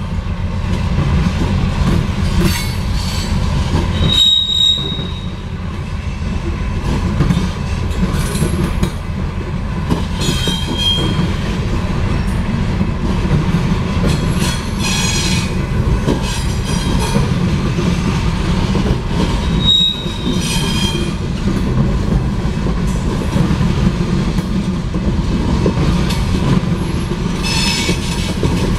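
Loaded coke hopper cars rolling past in a steady heavy rumble of steel wheels on rail, with brief high wheel squeals a few times, about 4, 11 and 20 seconds in.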